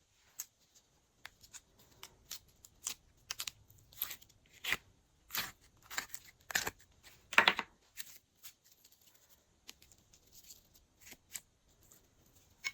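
Glossy slime being stirred and squeezed by hand, giving irregular sticky clicks, pops and crackles, busiest and loudest about halfway through.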